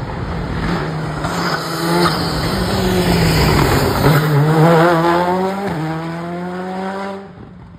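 Skoda Fabia rally car's turbocharged four-cylinder engine accelerating hard. Its note climbs with two short breaks in pitch, is loudest as it passes, and drops away near the end.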